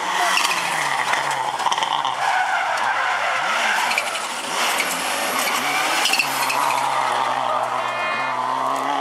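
Subaru Impreza WRC rally car's turbocharged flat-four boxer engine driven hard through a tarmac stage; the engine note falls and rises several times as it brakes, shifts and accelerates past.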